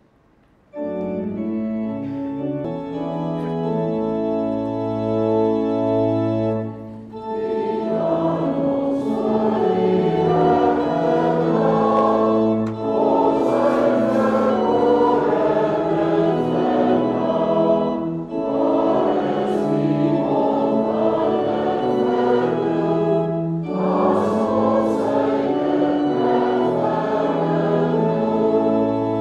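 Organ playing a short introduction of held chords, then a group of voices singing an Afrikaans hymn verse with the organ, with brief breaks between the sung lines.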